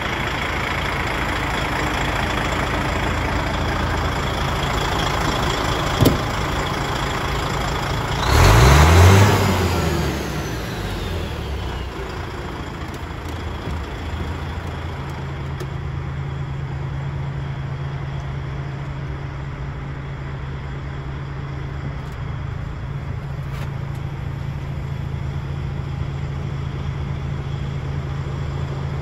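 DAF XF105's Paccar MX 460 hp straight-six turbo-diesel idling steadily. About eight seconds in it is revved once, the pitch rising and falling back to idle, with a turbo whistle dying away after the rev. A single sharp click comes just before.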